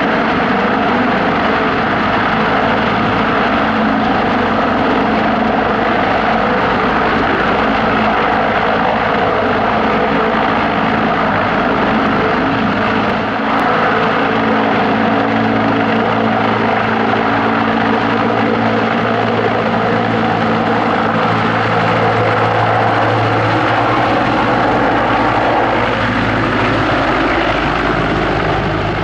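CH-53E Super Stallion heavy-lift helicopter running loud and steady, its three turboshaft engines and rotors giving a continuous drone with steady tones, easing off slightly near the end.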